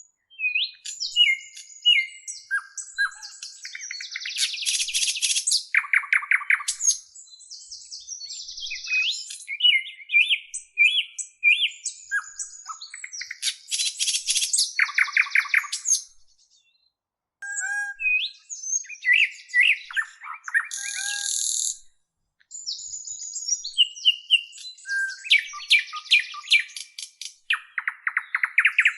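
Songbirds singing: a varied run of chirps, whistled notes and fast buzzy trills, broken by two short pauses in the second half.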